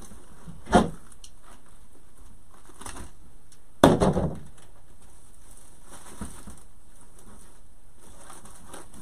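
Hands working ribbon and craft tools on a table. There is a short knock about a second in and a louder clatter just before halfway as a tool on the table is handled, over a steady hiss.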